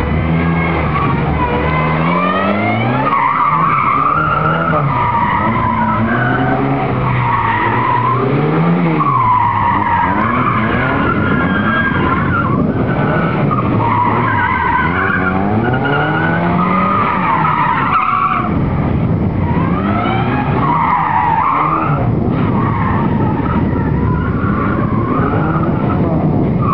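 Vauxhall Nova 1.6's engine revving up and dropping back again and again as the car skids through tight turns, its tyres squealing in repeated, wavering screeches.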